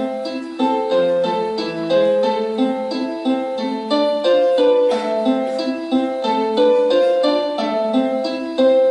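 Piano music playing, a steady run of struck notes in an even rhythm.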